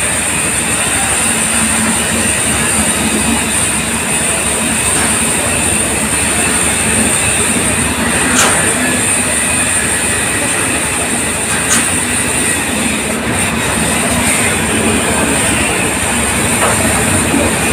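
Coaches of a departing express train rolling past at close range, a steady wheel-on-rail rumble carrying a constant high-pitched whine. Two sharp clicks of wheels over rail joints come about 8 and 12 seconds in.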